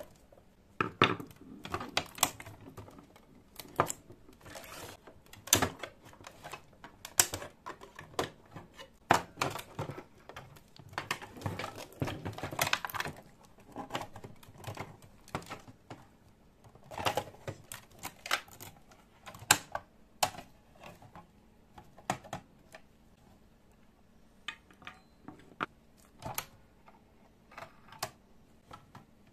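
Irregular sharp clicks, taps and knocks of hard plastic as a video tape machine's casing and inner parts are handled and taken apart. The clicks come thick and fast at first and thin out over the last few seconds.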